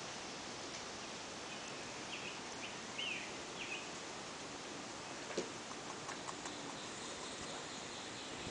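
Steady outdoor background hiss with a few short bird chirps about two to four seconds in, and a faint click a little after five seconds.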